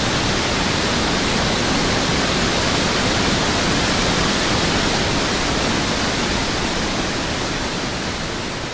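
Steady rushing of a river in flood, a dense, even hiss of fast water, easing down slightly near the end.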